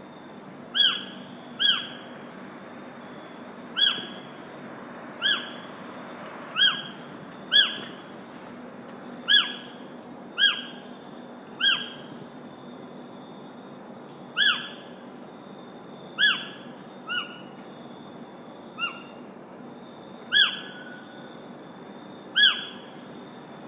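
A bird calling over and over, about fifteen short, sharp calls in the stretch, each a quick downward-sweeping note, coming every one to two seconds at uneven intervals. Under the calls run a steady hiss and a faint thin high tone.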